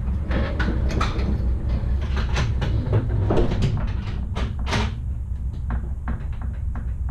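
Cargo trailer's rear ramp door being raised and shut, heard from inside the trailer: a run of clanks, knocks and rattles, loudest about three to five seconds in, over a steady low rumble.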